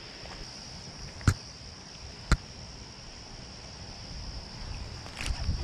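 Steady high-pitched buzz of insects, crickets or similar, with two sharp clicks about a second apart near the start.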